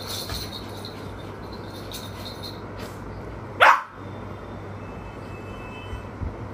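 Small spitz-type dog scratching and rustling at a bedspread for the first couple of seconds, then giving one short, high bark that falls sharply in pitch about three and a half seconds in.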